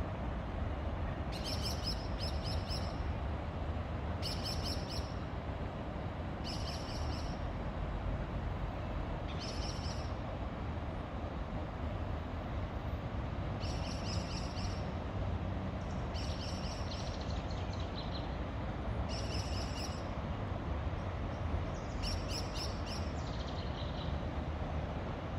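A songbird giving short, high-pitched chirping phrases of rapid repeated notes, about eight times, a few seconds apart, over a steady low background rumble.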